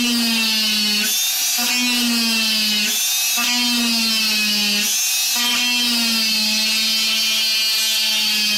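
Small handheld electric drill running with its bit dragged along a wooden dollhouse floor, grinding a groove deep enough to sink the lighting cable. The motor's hum sags slightly in pitch in stretches of a second or two, breaking briefly between them, as the bit is pushed along section by section.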